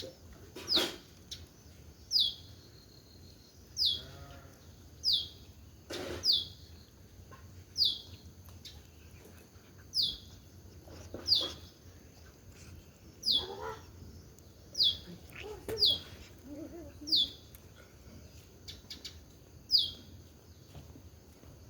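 A small bird repeating a short, high chirp that falls in pitch, about once every second or so, with a few fainter, lower animal calls in between.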